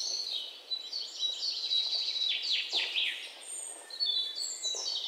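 Birds chirping and singing: a string of high chirps and quick downward-sweeping notes.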